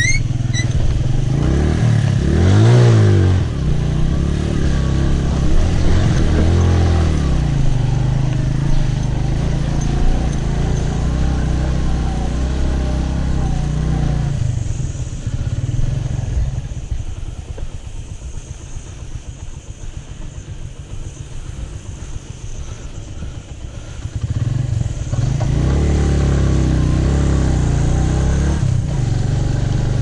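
Motorcycle engine under way on a rough off-road dirt track, revving up and down over and over through the first half. It runs quieter for about ten seconds in the middle, then pulls hard again near the end.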